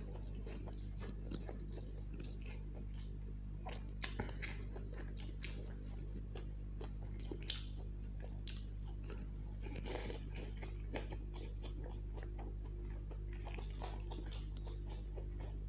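Close-miked chewing of chicken chow mein noodles, then biting into a charred long green chilli near the end: many short, irregular mouth clicks and smacks over a steady low hum.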